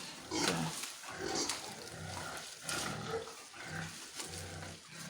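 Pigs grunting: a string of short, rough grunts, one every half second or so.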